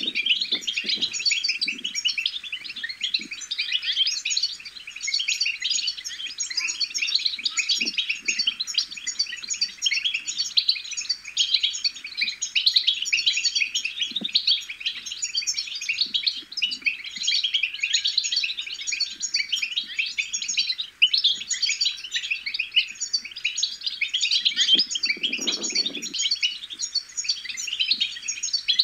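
European goldfinch twittering: a continuous fast stream of high chirps and trills without a break.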